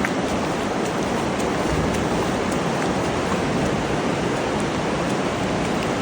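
Steady hiss of heavy rain falling, with faint scattered drop ticks.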